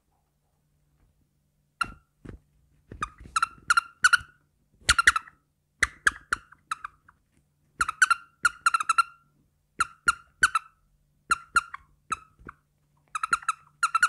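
A hand-puppet character's high-pitched chirping gibberish voice, standing in for speech in quick clusters of short syllables. It starts about two seconds in.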